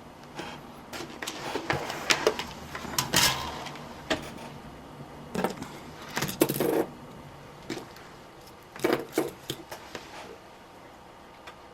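Scattered small clicks, taps and brief scraping rustles of hands and tools working wire ends with a soldering iron on a workbench while tinning them with solder.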